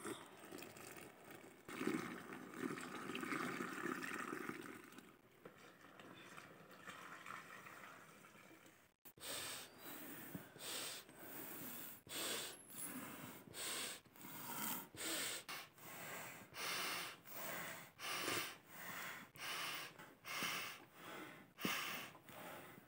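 Water poured from a metal jug into a cup, then a man blowing air by mouth into a goat-skin butter churn to inflate it, in quick regular breaths about one and a half a second.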